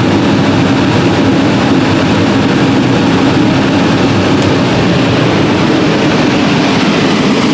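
New Holland CR8090 twin-rotor combine running steadily under load while harvesting corn and unloading on the go. It is a constant machine drone with a steady hum.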